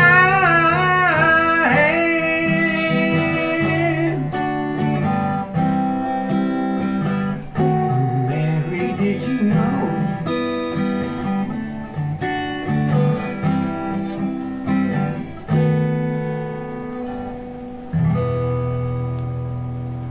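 A man's singing voice holds the song's last note for about four seconds, wavering with vibrato and then steady, over acoustic guitar. The acoustic guitar then plays an outro alone, picking notes and chords, and ends on a chord struck near the end that rings out.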